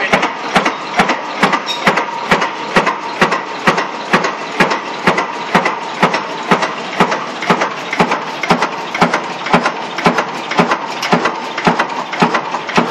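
10 hp Blackstone single-cylinder horizontal stationary engine running, a steady sharp beat about three times a second, with its governor not working.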